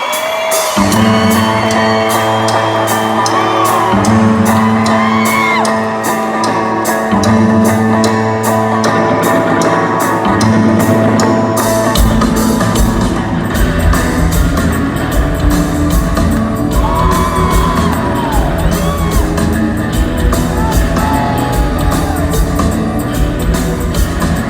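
Live rock band playing a song, with whoops from the crowd. Bass and guitar notes come in about a second in over a steady hi-hat pulse. The full drum kit joins about halfway through, and the band plays on at full volume.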